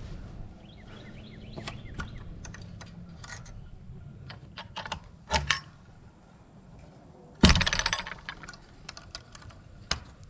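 Small metal clicks and taps from the pen door's latch and hardware being handled, with one louder clatter a little past halfway and a sharp click near the end.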